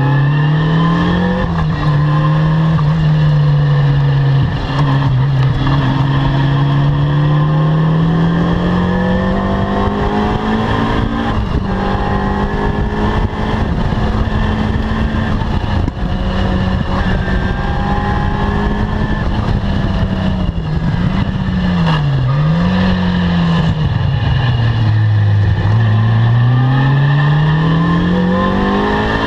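Caterham R300 sports car engine pulling hard around a racing circuit, its pitch climbing and falling through gear changes and braking. Two quick dips come about two-thirds of the way through, then a long steady climb near the end.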